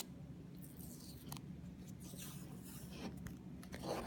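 Tape being peeled off a painted wooden plaque: several short, faint rasping strips of noise with a few small clicks.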